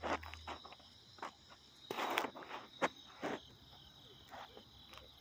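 Footsteps scuffing on dirt at irregular intervals, over a steady high-pitched insect trill.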